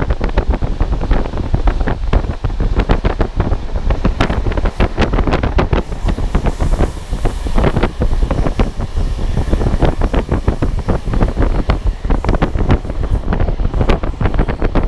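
Wind buffeting the microphone of a camera on a moving train, a dense irregular crackle over the train's steady low rumble.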